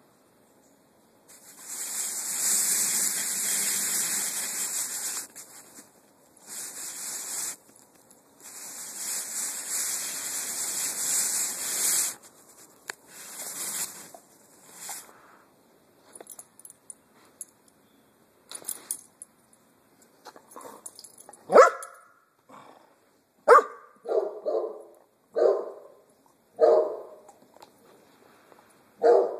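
Dog barking, short barks about a second apart through the last third, the loudest sounds here. Earlier come several seconds-long bursts of rushing hiss.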